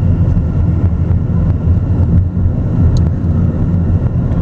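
A car driving along, its road and wind noise a steady low rumble heard from inside the vehicle, with one small click about three seconds in.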